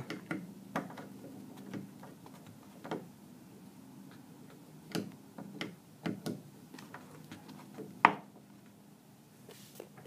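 A door swinging shut slowly under a hydraulic door closer that is set to close too slowly, with scattered faint clicks and knocks and one sharper knock about eight seconds in.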